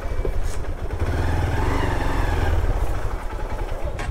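Motorcycle engine running steadily amid dense city traffic.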